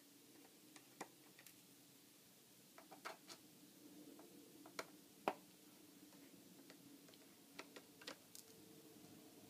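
Sparse small clicks and taps over near-silent room tone, with a cluster about three seconds in and the loudest single click about five seconds in: a MacBook Pro and its small parts being handled during a RAM upgrade.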